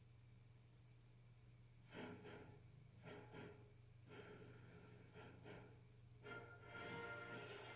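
Faint film score from a television speaker over a steady low hum: soft, airy swells start about two seconds in and grow fuller and continuous near the end.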